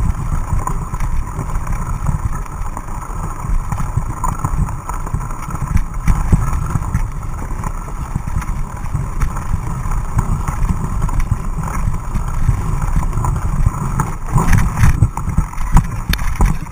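Mountain bike riding over rough, muddy grass trail, heard through a bike-mounted action camera: a steady jolting rumble with wind on the microphone, and knocks and rattles over bumps that come thicker near the end.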